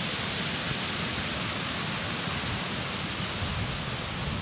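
Wind on the microphone: a steady hiss with low, uneven buffeting.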